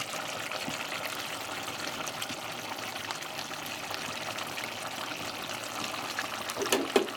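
Chicken wet fry simmering in the pan: a steady sizzling hiss with small crackles and pops, with a few louder knocks near the end.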